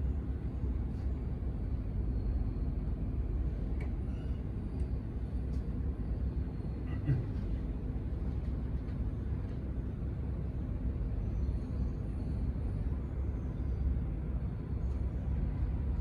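Steady low rumble of distant airport and vehicle traffic, with a few faint clicks and a brief chirp about seven seconds in.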